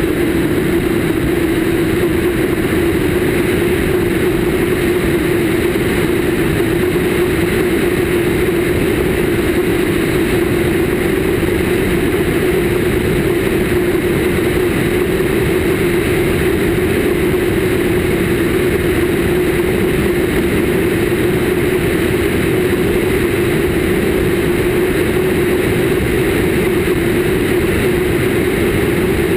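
Cessna 152's four-cylinder Lycoming engine and propeller running at a steady drone in flight, heard from outside the cabin with the rush of airflow over the microphone.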